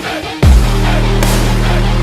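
Background electronic music with heavy bass, with no vocals; a deep sliding bass hit comes in about half a second in.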